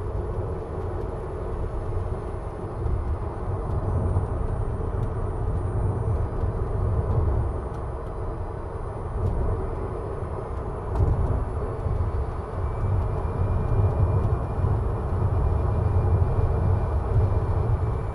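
Tyre and road rumble of a Tesla Model 3 Performance electric car driving steadily along a paved road, with no engine note. A faint, steady high tone comes in about two-thirds of the way through.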